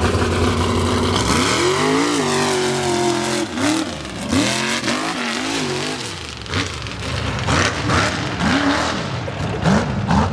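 Mega truck's big engine revving hard on an off-road obstacle course. The throttle is held high for a second or so, then blipped up and down, with several short rises in pitch near the end.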